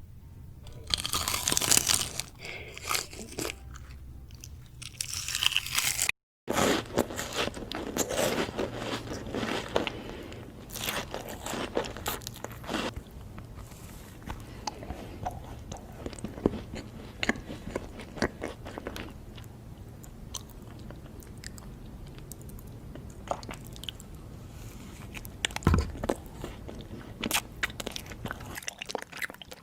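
Close-miked eating: crunchy bites and chewing, loudest in the first few seconds, with a brief silent gap about six seconds in, then steady chewing with scattered crunches.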